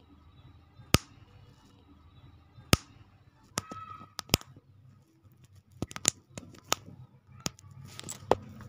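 Small plastic Lego-style building bricks clicking and snapping as pieces are pressed onto a brick-built toy car: a scattering of sharp single clicks at irregular intervals.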